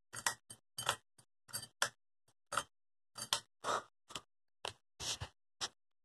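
The pull chain and fittings of a Hunter ceiling fan clicking and rattling as the fan is switched on and its blades start turning: a run of irregular sharp clicks, about three a second.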